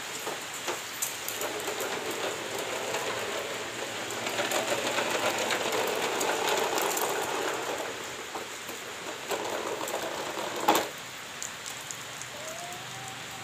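Plastic wheels of a toy dump truck rolling and rattling over ceramic floor tiles as it is pulled along on a string, louder in the middle. Near the end a single sharp knock, the loudest sound.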